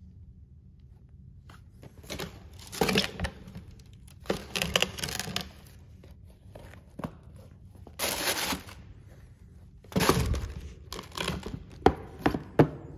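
Tissue paper crinkling and a cardboard shoebox being handled in several separate bursts of rustling, with a few short sharp knocks near the end as the box lid is set on.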